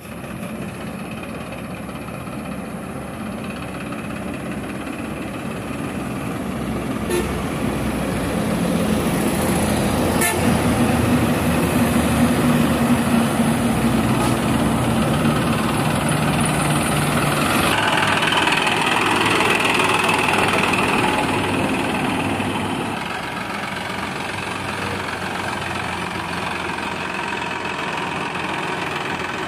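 Tafe 9500 tractor's turbocharged diesel engine running as the tractor drives up. It grows louder over several seconds as it nears, stays loud for a stretch, then drops back near the end. Road traffic and horn toots are mixed in.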